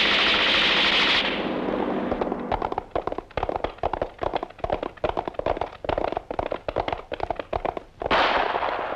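Gunfire from a film gunfight: after a loud, dense stretch of noise, many sharp shots follow at irregular spacing, several a second. Near the end another dense, loud stretch of noise begins.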